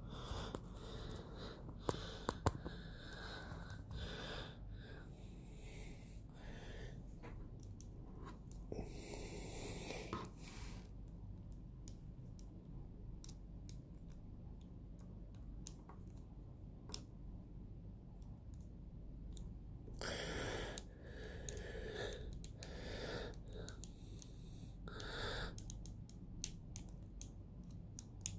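A plastic action figure being handled and posed: scattered light clicks and rubbing of its jointed plastic parts, with a few longer rustling hisses, over a low steady hum.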